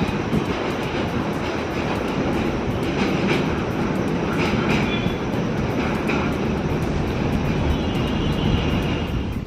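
Express passenger train running through a station at speed: a steady, loud rush and rumble of wheels on the rails with a fine rapid clatter.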